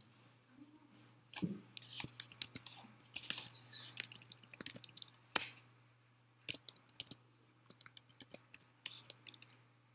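Faint keystrokes and clicks on a computer keyboard as code is edited, in irregular clusters with a pause around the middle, over a low steady hum.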